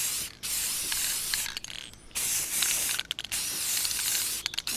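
Aerosol spray paint can spraying: a loud hiss in three or four bursts, with short breaks between them as the nozzle is released and pressed again.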